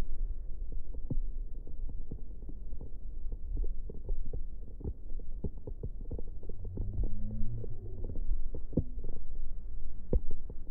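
Strong wind buffeting the phone's microphone: an unsteady low rumble with frequent pops and thumps.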